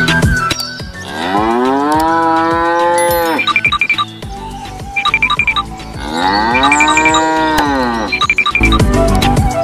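A cow mooing twice: two long calls that rise and then fall in pitch, the first about a second in and the second about six seconds in, over background music.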